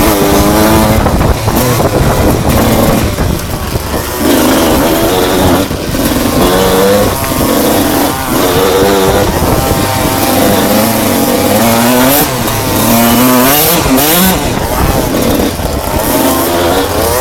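Enduro motorcycle engine ridden hard, its pitch climbing and falling again and again as the throttle is opened and shut, with short dips every few seconds at shifts or throttle-offs.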